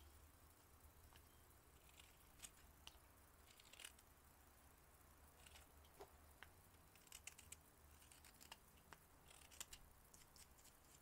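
Faint, irregular snicks and scrapes of a carving knife taking thin shavings off a cherry-wood spoon bowl, with a low steady hum underneath.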